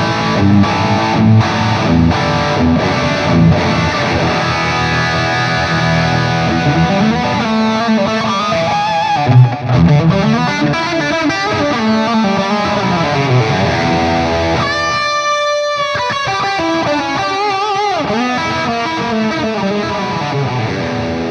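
Electric guitar played through the red, high-gain channel of a Bogner Ecstasy amp model on an IK Multimedia ToneX pedal. Distorted chords and lead lines with sustained notes, and string bends near the end.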